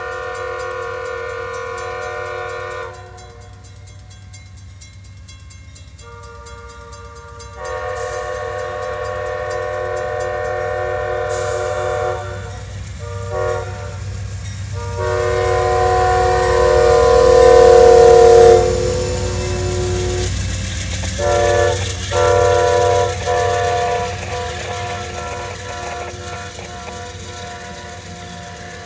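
Amtrak passenger train's multi-chime horn sounded in a series of long, quilled blasts that grow louder as the train approaches, loudest about halfway through, then several short blasts that fade as the train goes by. A low rumble of the train on the rails runs underneath.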